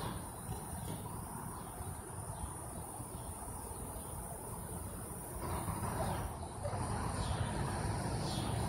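Steady, high-pitched insect drone, like crickets, over a low outdoor rumble.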